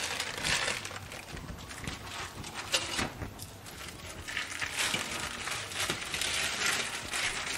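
Plastic freezer bag crinkling and rustling as a frozen block of soup is squeezed out of it into a cooking pot, with a couple of light knocks about three seconds in.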